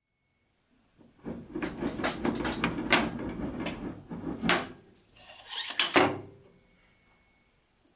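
Hardwood pieces handled and shuffled on a workbench: a busy run of wooden knocks and clicks over scraping, starting about a second in and stopping about six seconds in.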